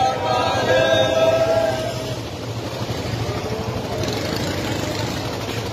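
Several motorcycle engines running together with a low, fast pulse. A singing voice fades out over the first two seconds.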